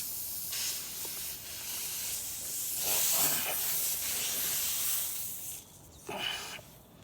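Air hissing out of a punctured tyre around a rubber string repair plug being pushed in. The hiss stops about five and a half seconds in as the plug seals the leak.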